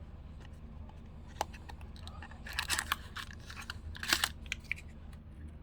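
Blind-box pin packaging being torn and crinkled open by hand: a sharp click about a second and a half in, then two short bursts of crackling rustle.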